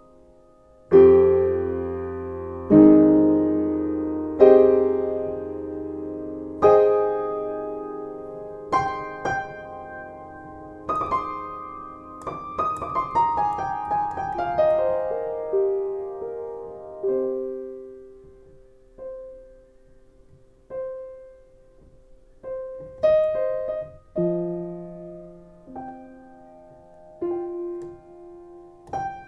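Solo piano music: slow chords struck every couple of seconds that ring and fade, a quick falling run of notes about halfway through, then sparser single notes and chords.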